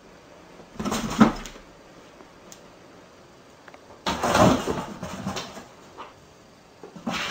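A cat jumping and scrambling on and into large cardboard boxes: three bursts of cardboard scraping, rustling and bumping, about a second in, a longer one from about four seconds, and another near the end.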